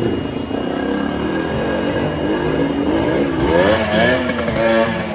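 Motorcycle engine revving hard inside a well-of-death wooden drum, its pitch climbing and falling repeatedly, most strongly in the second half, as the bike rides the curved wooden wall.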